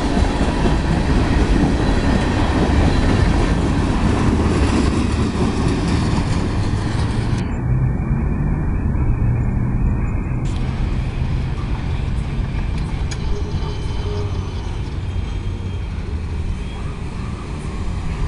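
Freight cars of a CSX mixed freight train rolling past on jointed rail, a steady rumble and rattle of wheels and car bodies that slowly fades as the end of the train draws away.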